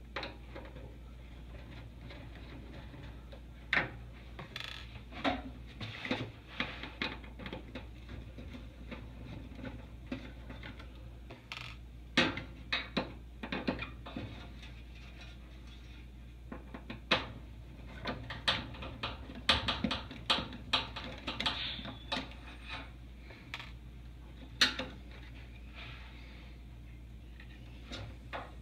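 Hands handling parts at the opened back of a gas range: irregular light clicks, taps and rattles, coming in scattered clusters.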